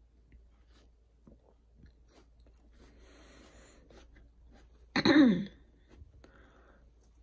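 Faint small clicks and rustles, then about five seconds in a single short, loud vocal burst from a person, falling in pitch, like a cough or sneeze.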